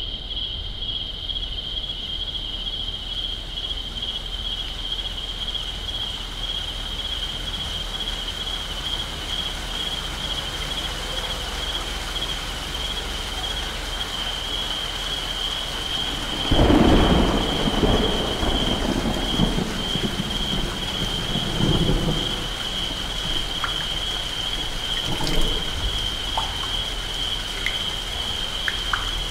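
Thunderstorm soundscape: steady rain hiss under a constant high chirring of crickets. About halfway through a thunderclap breaks and rolls for several seconds, swelling again a few seconds later, and near the end scattered water drips tick.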